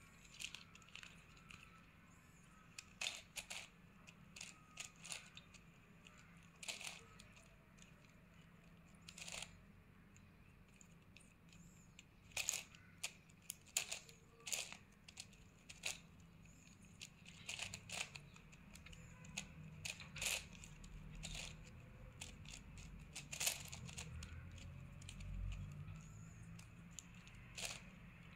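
Plastic 9×9 puzzle cube being turned by hand: sharp, irregular clicks and clacks of the layers turning and snapping into line, coming in small clusters with short pauses between.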